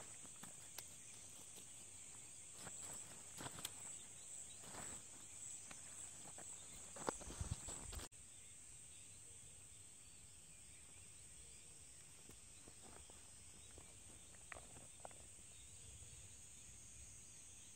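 Insects chirping steadily at a high pitch, with the rustle and clatter of a pop-up tent's fabric and poles being folded in the first half; the handling noise stops abruptly about eight seconds in.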